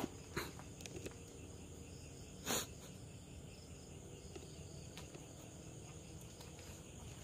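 Faint night ambience of crickets chirping steadily, with a few small clicks and one short noisy burst about two and a half seconds in.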